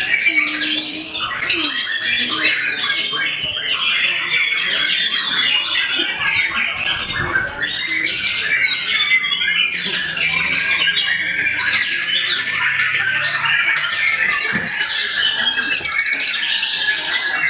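Many caged songbirds singing at once, a dense, unbroken mass of overlapping chirps, trills and squawky calls.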